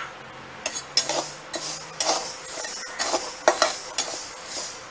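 Flat steel spatula scraping and clinking against an aluminium kadhai as moong dal is stirred while it dry-roasts, the grains rustling across the metal. The strokes come in a quick, uneven run, a couple a second.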